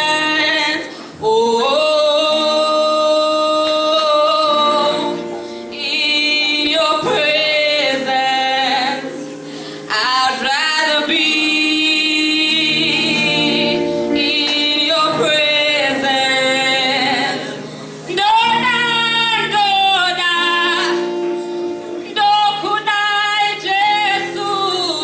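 A woman singing a worship song in phrases with long held notes, accompanying herself on acoustic guitar.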